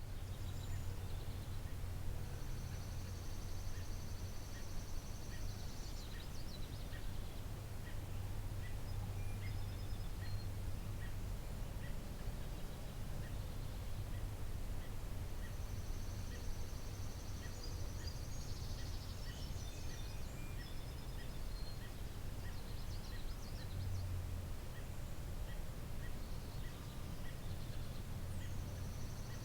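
Garden ambience of wild songbirds: high trilling songs come and go, and a short chip note repeats about twice a second, over a steady low hum.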